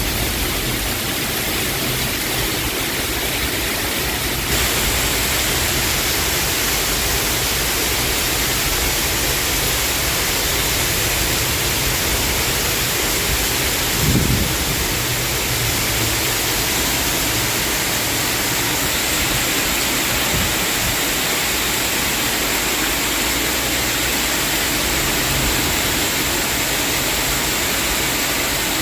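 Heavy storm rain pouring down in a steady hiss, growing louder a few seconds in, with one brief low thump about halfway through.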